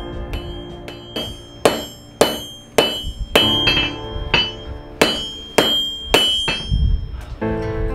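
Hand hammer striking hot steel on an anvil in a steady rhythm, just under two blows a second, each blow ringing out.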